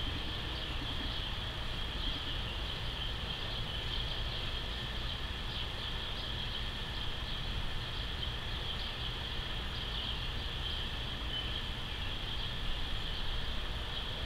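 Outdoor ambience: a steady high-pitched chirring that keeps on without a break, with a low rumble underneath.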